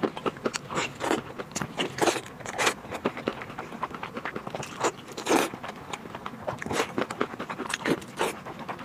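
Close-miked eating sounds: a person biting and chewing saucy braised ribs, with irregular clicks and smacks several times a second.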